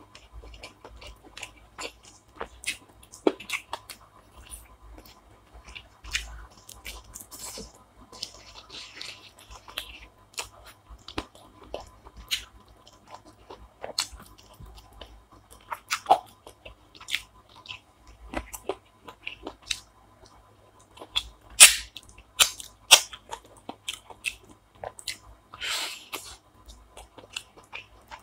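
A person chewing and crunching food close to the microphone: irregular wet clicks and crunches of bites, with a few louder crunches about two-thirds of the way through and again near the end.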